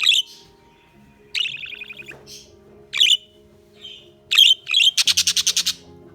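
Budgerigar calling: short sharp chirps and a pulsed, buzzy call about a second in, then a loud, fast rattling call near the end. Faint background music runs underneath.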